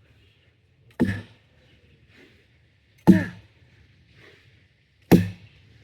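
Axe chopping wood: three solid strikes about two seconds apart, each a sharp crack that rings briefly as it dies away.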